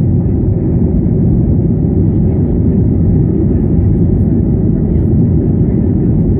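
Jet airliner taking off: a loud, steady low rumble that does not change.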